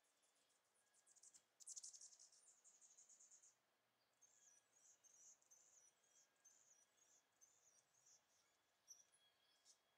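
Faint, high-pitched insect chirping. A quick rapid trill comes about two seconds in, then short chirps repeat about twice a second.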